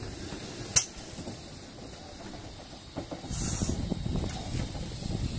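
GWR Manor Class 4-6-0 steam locomotive in steam, with a low rumble throughout and a short hiss of steam about three seconds in. A single sharp click about a second in.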